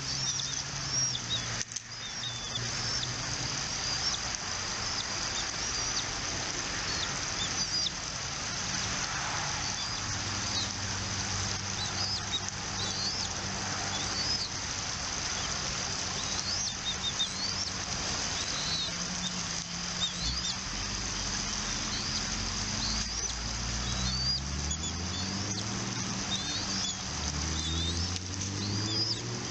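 A bird chirping: short, high, upswept chirps repeated every second or two, over a steady rushing background with a low hum that changes pitch in the second half.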